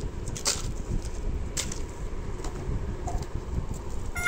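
Plastic snack wrappers and sachets rustling as they are handled, with a few sharper crinkles about half a second, a second and a half, and two and a half seconds in, over a low steady rumble.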